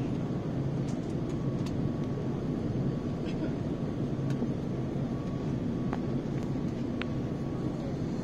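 Steady cabin noise inside an Airbus A350 airliner in flight: a low, even rumble of engines and rushing air, with a faint steady tone above it and a few faint ticks.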